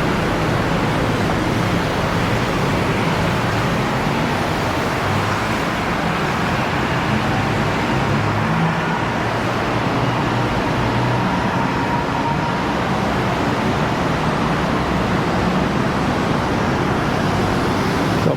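Steady, loud road traffic noise: a continuous rush of passing vehicles, with no separate events standing out.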